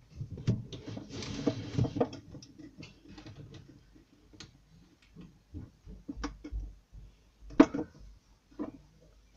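Handling noise: rustling for the first couple of seconds, then scattered light clicks and knocks, with one sharper knock about seven and a half seconds in, as the phone and small things near it are moved about.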